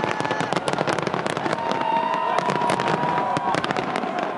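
Fireworks display: a dense, continuous rattle of bangs and crackles, with a held whistle-like tone through the middle.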